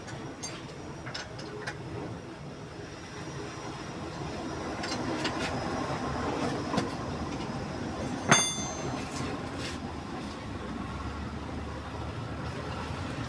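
Steady rumble of a car on the move, road and tyre noise building gradually, with scattered light rattles and one sharp metallic clink about eight seconds in.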